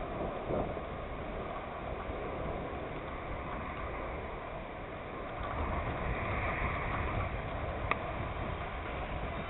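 Steady wind rumble on the microphone, with a single sharp crack near the end as a cricket bat strikes the ball.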